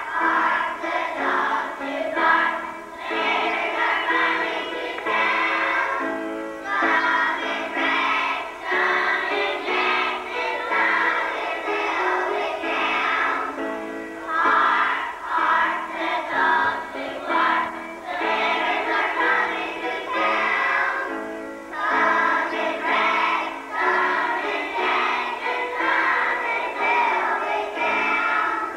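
A group of young children singing a song together, phrase after phrase with short breaks between.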